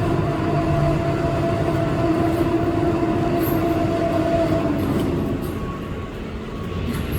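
Steady machinery noise with a droning hum that fades out about five seconds in.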